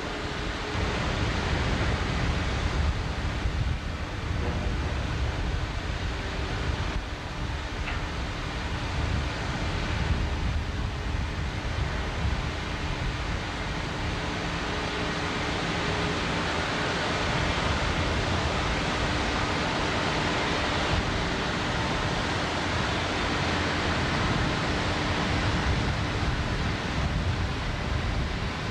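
Steady rushing noise, even and unbroken, with a faint steady hum underneath.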